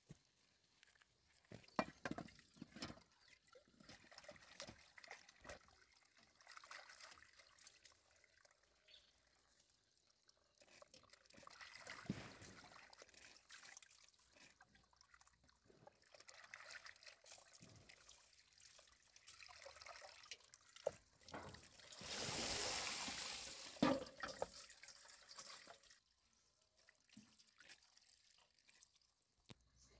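Water trickling and splashing as leafy greens are rinsed by hand in a metal basin, with water running in from a pipe. There is a louder stretch of pouring water a little past the middle.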